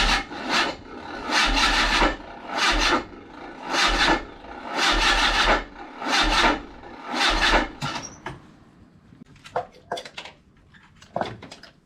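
Mazda MX-5 four-cylinder engine turned over on the starter without catching: about eight uneven, labouring surges over some eight seconds, then the cranking stops and a few light clicks follow. The cranking drags as if the engine is trying to fire at the wrong moment, which the mechanics put down to ignition 180 degrees out or plug leads in the wrong firing order.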